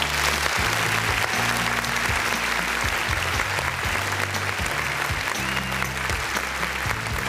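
Audience applauding while walk-on music plays, its bass line moving through held low notes under the steady clapping.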